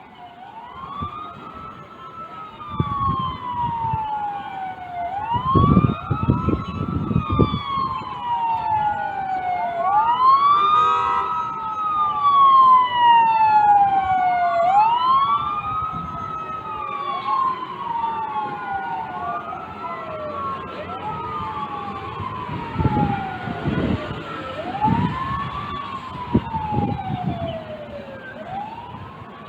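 Fire engine sirens wailing, two or more out of step with one another. Each tone sweeps up quickly and falls away slowly, over and over, with low rumbling at times. The sirens grow louder toward the middle and fade near the end.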